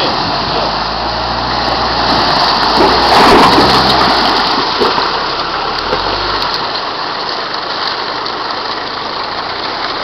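Mitsubishi Pajero's 2.8-litre diesel engine running as the SUV climbs out of a river ford, over the steady rush of the river. There is a loud surge of water splashing about three seconds in. The engine drops out about six and a half seconds in, leaving only the river.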